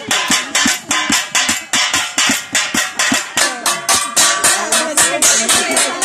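Kitchen pans, lids and plates beaten in place of gangsa gongs, a fast, even beat of metallic clanging strikes. Voices call out over the beat in the second half.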